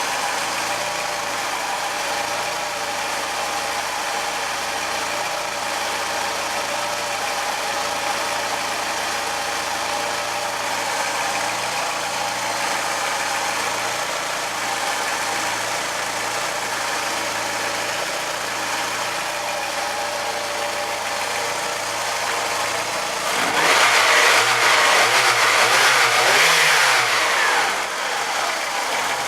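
Mk2 VW Jetta's 1.8 GX four-cylinder petrol engine idling cold, with the knocking that the owner calls strange. Near the end it is revved up briefly for about four seconds, then drops back to idle.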